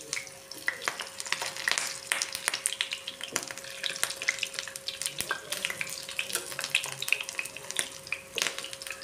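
Potato and wheat-flour cutlets shallow-frying in hot oil in a nonstick pan, sizzling with a steady stream of small crackles and pops, as steel spoons turn them over.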